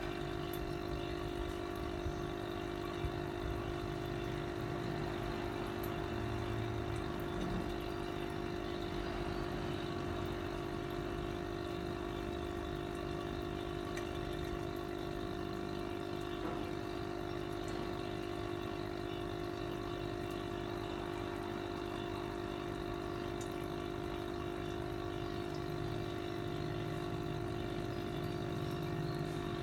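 Small electric aquarium air pump humming steadily, with air bubbling up through the water of the fish bowl.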